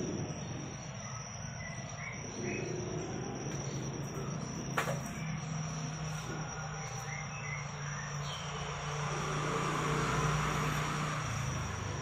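Crickets chirping in a steady, unbroken high trill, with a single sharp click about five seconds in.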